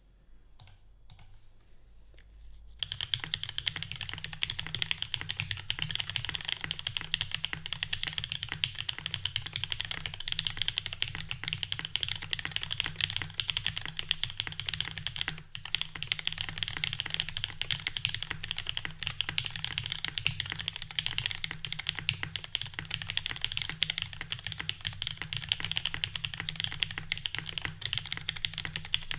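Fast, continuous typing on a custom mechanical keyboard with lubed, filmed Cherry MX Black linear switches in an aluminium plate with no foam, under thick CRP keycaps. A few light clicks come first, then steady typing starts about three seconds in.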